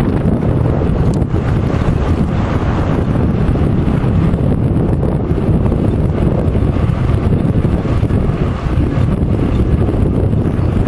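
Wind buffeting the microphone of a camera carried on a moving electric bike: a steady, loud, low rumble.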